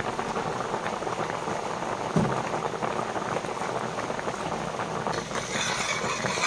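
Milk-based pasta payasam bubbling steadily in a pot on the stove, a dense continuous crackle with a soft thump about two seconds in; a brighter hiss joins about five seconds in.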